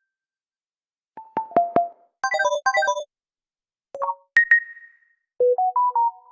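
Short mobile phone ringtone and alert sounds played one after another, each a brief figure of a few electronic notes with silence between: a quick plucked run about a second in, a bright chiming figure just after, a two-note ding about four seconds in, and a little rising melody near the end.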